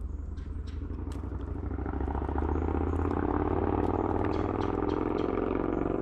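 Engine of a passing motor vehicle, building from about a second and a half in and staying loud until it drops away near the end, over a steady low hum. A few sharp clicks near the start.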